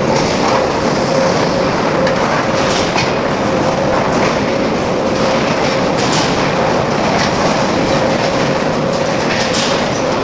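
Loud, steady industrial machinery noise with a constant hum and a few faint clicks.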